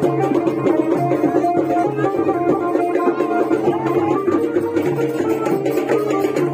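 Karam folk dance music: hand drums keeping a steady rhythm under a melody of short held notes, playing continuously.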